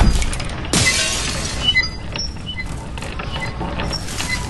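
Earthquake damage sound effects: a low rumble and crash at the start, another sharp crash a little under a second in, then breaking glass and small debris tinkling and clinking as ceiling panels and fittings fall.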